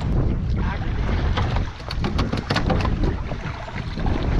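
Wind buffeting the microphone over water sloshing against a small boat's hull, with scattered small clicks and knocks.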